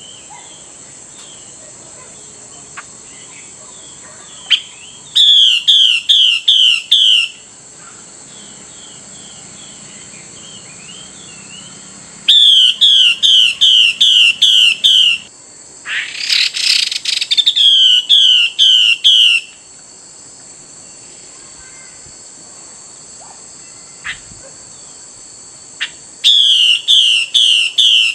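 Female Chinese hwamei giving her 'xùy' call to a male. It comes as rapid runs of sharp, down-slurred notes, in four bursts of about two to three seconds each. A rasping burst about a second long comes just before the third run, and a steady high hum lies under everything.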